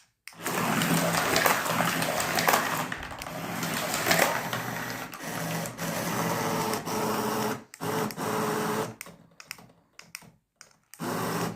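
Small electric motor of a remote-controlled toy car running hard through plastic tube track, a steady buzzing hum with clattering as it rattles along the pipes. About nine seconds in it breaks into short stop-start bursts as the car gets stuck in the track.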